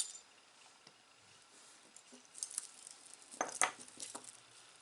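Costume jewelry pieces clinking and rattling against each other as they are handled. A cluster of sharp clinks comes a little past the middle.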